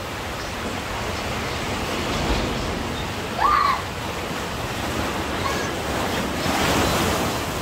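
Sea waves washing onto a beach, a steady surf hiss that swells near the end as a wave breaks. About halfway through comes one short, high, rising call.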